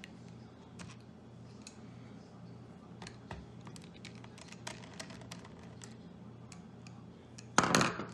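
Scattered light clicks and taps of a small screwdriver and tiny screws against a laptop's plastic chassis during disassembly, with a louder clatter about seven and a half seconds in, over a low steady hum.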